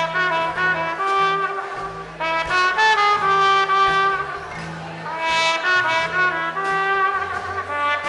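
Band music led by brass horns, trumpet and trombone, playing a sustained, stepwise melodic phrase over a lower bass line, with no singing.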